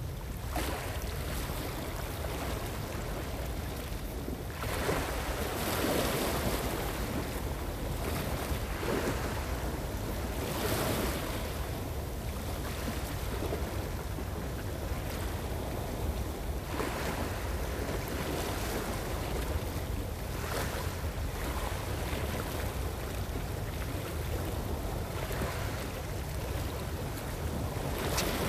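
Small sea waves washing against a rocky shore, swelling and falling back every few seconds, with steady wind rumbling on the microphone.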